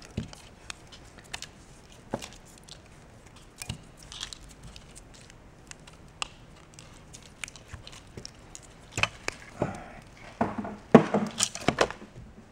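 Wiring harness with plastic connectors being handled and set down on a workbench: scattered light clicks and taps, then a louder run of rustling, rasping and clattering in the last few seconds.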